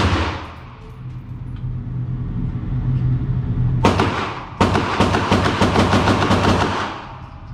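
Ruger AR-556 MPR rifle firing in an indoor range, each shot sharp and echoing: one shot at the start, another about four seconds in, then a fast string of shots lasting about two seconds.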